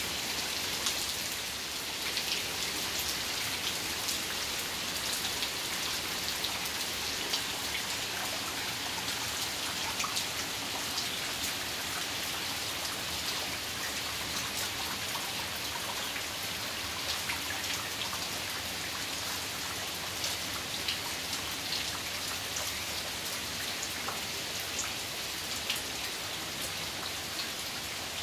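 Steady rain falling on wet ground and foliage, a constant hiss dotted with many small, sharp drop ticks.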